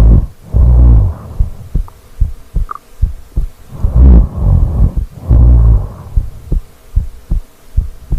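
A sleeping woman's heartbeat picked up close to the microphone as low, regular thumps. Loud snoring breaths sound over it at the start and again about four seconds in.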